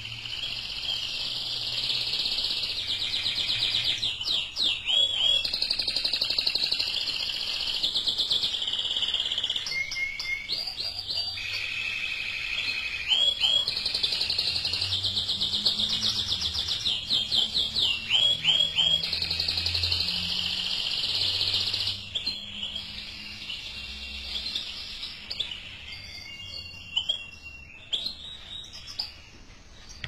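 Domestic canary singing: long, high-pitched rapid trills in phrases of one to two seconds, broken by short swooping notes. The song grows quieter after about twenty-two seconds.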